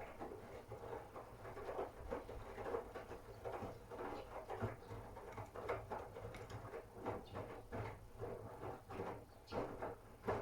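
Miele W1 front-loading washing machine in its wash phase: the drum turns with laundry tumbling, giving irregular soft knocks and patter over a steady low motor hum. The tumbling stops with a last louder knock near the end.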